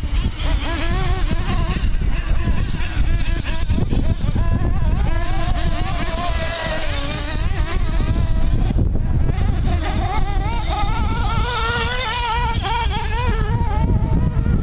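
Radio-controlled off-road cars' small internal-combustion engines racing: a high buzzing whine that keeps rising and falling in pitch as they throttle up and back off around the track, over a steady low rumble.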